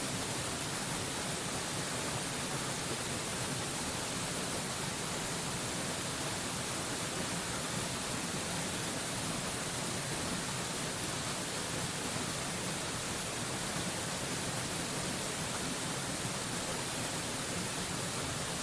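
Waterfall rushing in a steady, unchanging hiss, brightest in the high end.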